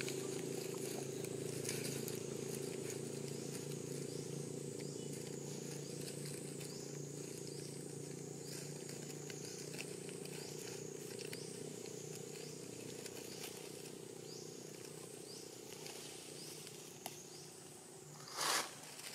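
A steady engine hum that fades slowly, under repeated short high chirps. Near the end there is one brief, loud noise.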